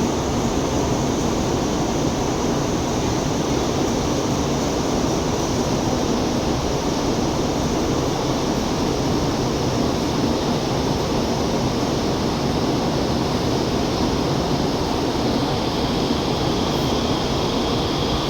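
Taiwan High Speed Rail train running, a steady rumbling, rushing noise that holds even throughout; a faint high whine joins near the end.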